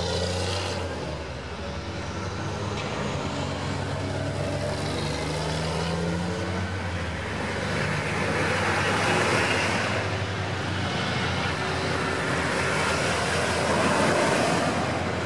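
Military vehicles driving past one after another: an eight-wheeled armoured vehicle's diesel engine running first, then a Humvee and an army truck going by with engine and tyre noise, loudest about nine seconds in and again near the end.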